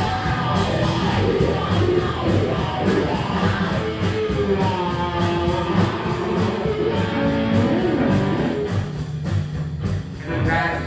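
Live blues band playing amplified, with electric guitars to the fore over a steady beat.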